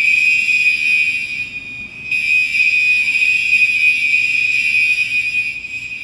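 STI exit-door alarm sounding a continuous, piercing high-pitched electronic tone. It dips briefly about a second and a half in, then comes back at full strength.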